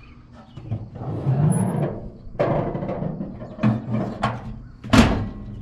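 Steel hood of a 1952 Chevrolet one-ton truck being lowered and shut: rattling and a few knocks, then one loud slam about five seconds in.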